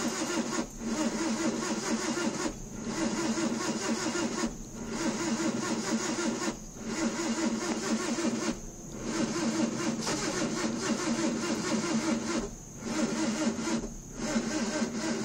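1988 Mazda 323 engine being cranked by its starter in a string of attempts of about two seconds each, with short pauses between and one longer try in the middle, without catching: a no-start.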